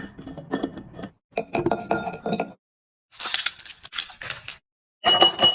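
Light clinking and clattering, like small hard objects or dishes knocking together, in several short stretches broken by abrupt silences.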